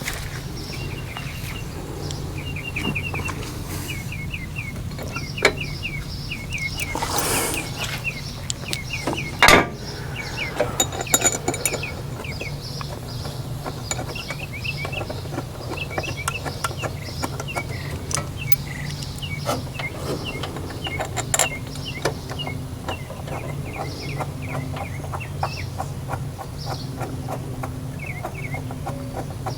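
Birds chirping in quick short calls over and over, with a steady low hum underneath. A few sharp clicks and clinks from hand tools being handled come through now and then.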